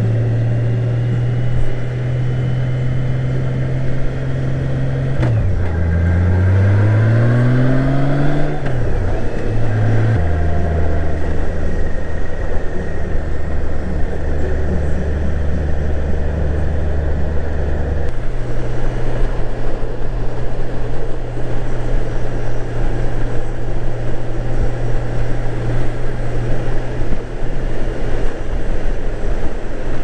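Honda GL1800 Gold Wing's flat-six engine under way with wind rushing past. The engine note drops about five seconds in, climbs as the bike accelerates, then holds a steady cruise from about ten seconds in, while the wind noise grows.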